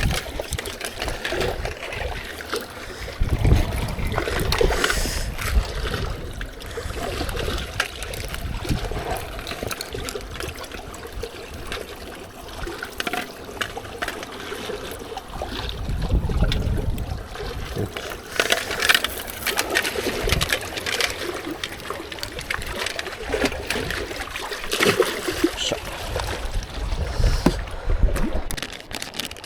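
Gusts of wind buffeting the microphone in uneven low rumbles, over water lapping and trickling at the shore.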